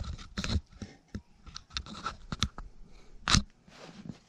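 Hands handling packaged camera gear and its boxes: a run of irregular crackles, clicks and taps, the loudest about three seconds in.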